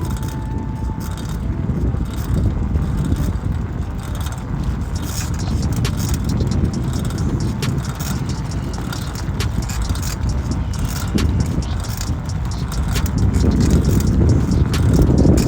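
Steady wind buffeting and rolling rumble from a camera mounted on a moving bicycle, with small rattling clicks from the bike throughout.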